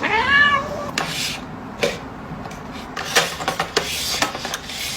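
A cat meows once at the start, a short call that rises and then falls in pitch. It is followed by a few scattered light clicks and knocks.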